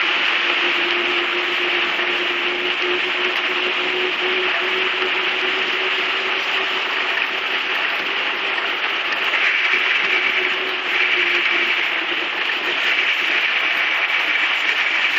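Bicycle freewheel hub ratcheting as the bike coasts, a steady continuous buzz of fast clicks, with a faint steady hum underneath.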